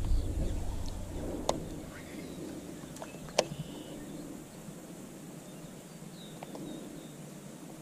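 Outdoor marsh ambience with faint bird chirps, broken by two sharp clicks about two seconds apart. A low rumble dies away in the first second.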